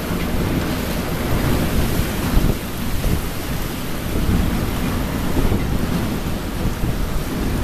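Ferry hull pushing through broken lake ice: a steady rush of water and ice with the occasional knock of a floe against the hull, and wind buffeting the microphone.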